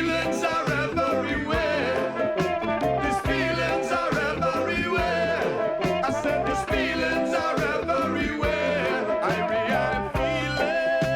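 Instrumental reggae: bass, offbeat skank chords and drums, with some melodic lines from voice or horns.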